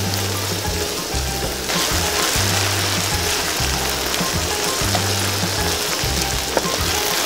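Hot oil sizzling steadily as marinated quail deep-fry in a pan, over background music with a repeating bass line. The sizzle gets louder about two seconds in.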